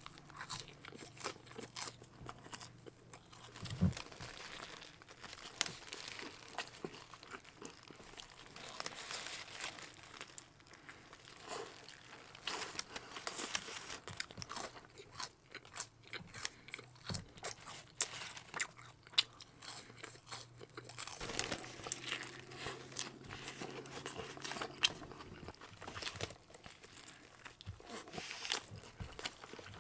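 Close-miked eating of In-N-Out fast food: repeated crunchy bites and wet chewing, with occasional wrapper crinkling.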